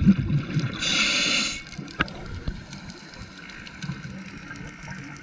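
Scuba breathing through a regulator underwater. Exhaled bubbles gurgle at the start, then an inhalation hisses steadily through the regulator about a second in, for under a second, followed by quieter bubbling.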